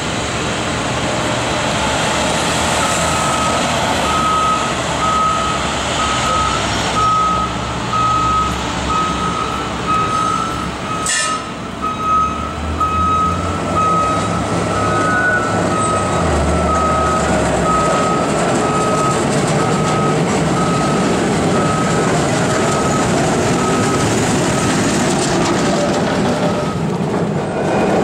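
A short electronic beep repeating about once a second over a running vehicle engine and street traffic, with a single sharp clunk about eleven seconds in.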